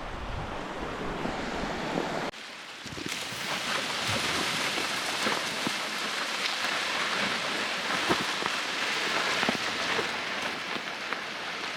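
Lake waves washing on the shore: a steady hissing wash with many small splashes. The sound changes abruptly about two seconds in, from a duller rumble to a brighter hiss.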